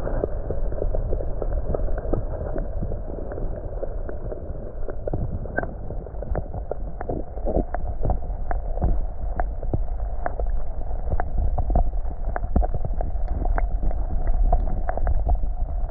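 Muffled, steady rush of creek water with many small sharp clicks and ticks scattered through it.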